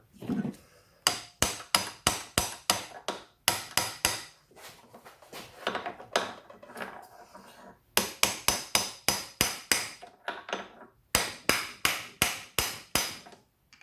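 Hammer blows driving a part onto an Audi A4 CV drive shaft, likely through a socket used as a drift, the same way as the part before it. Runs of sharp, ringing metallic strikes, about three a second, stop and start several times, with a longer pause about halfway through.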